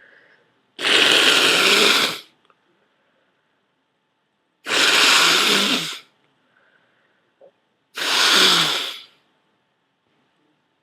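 A person blowing a nose congested with a cold and thick mucus: three long, forceful blows about three seconds apart.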